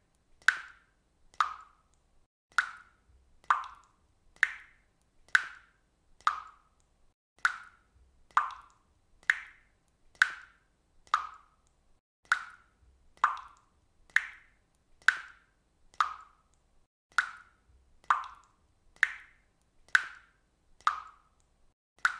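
Water dripping from a faucet: single drops plopping steadily at about one per second, in an even rhythm.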